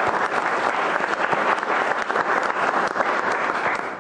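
Audience applause: many hands clapping in a dense, steady patter that dies away near the end.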